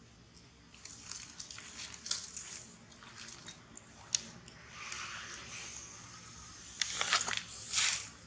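Dry leaves and twigs crackling and rustling as a baby monkey moves about and handles them, with scattered sharp snaps and a louder burst of crackling near the end.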